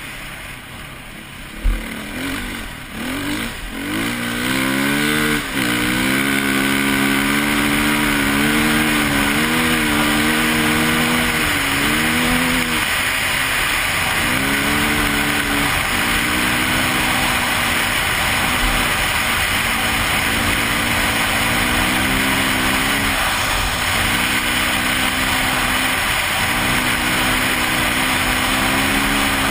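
KTM 450 EXC enduro motorcycle's four-stroke single-cylinder engine being ridden hard, its pitch climbing and dropping again and again as the throttle is worked and gears change. It starts quieter, with a single knock about two seconds in, before the engine note builds.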